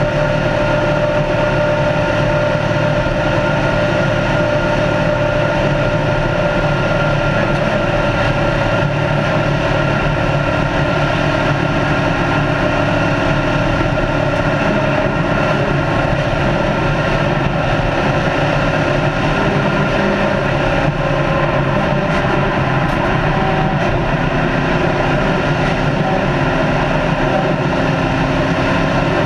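Race car at steady high speed: a continuous engine drone whose pitch holds nearly constant, over tyre and road noise.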